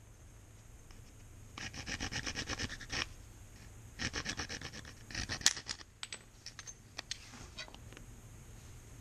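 A bamboo tool scraped rapidly back and forth against a soft soapstone block, about seven strokes a second, in two runs. A sharp click ends the second run, followed by a few scattered light ticks.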